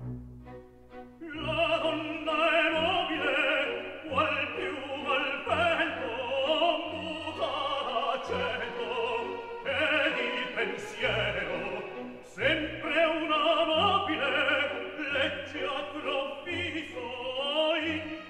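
Background music: a classical, operatic-style piece with a wavering, vibrato-laden lead over orchestral accompaniment and a repeated bass line.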